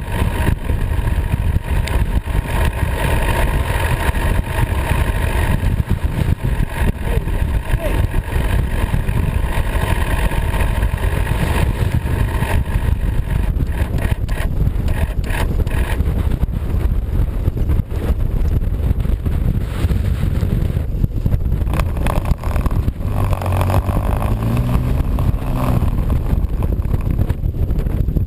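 Vehicle engine running steadily under way, with heavy wind noise on the microphone; about two-thirds of the way through, a pitched sound briefly rises and falls.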